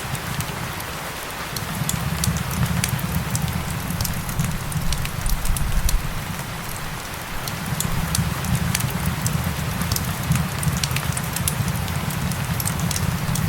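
Steady rain hiss mixed with a crackling wood fire: many small sharp pops scattered throughout, over a low rumble that swells and fades.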